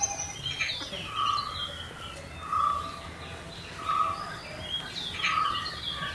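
Birds calling: one bird repeats a short, level note about once every second and a half, while other birds chirp higher up.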